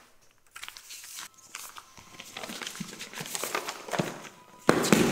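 Paper rustling and crinkling as a letter is handled and drawn from its envelope: a run of short, uneven crackles, with a louder burst near the end.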